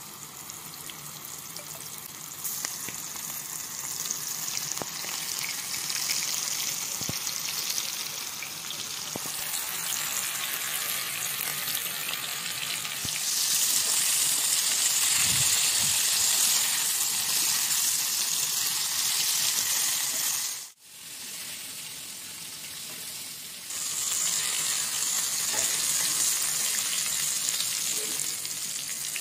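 Battered prawns deep-frying in hot oil in a wok: a steady sizzling hiss. It grows louder about halfway in, breaks off for an instant a little later, then carries on.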